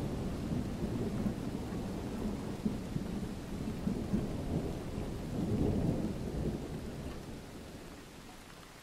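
A low, noisy rumble that swells briefly past the middle, then fades away over the last couple of seconds.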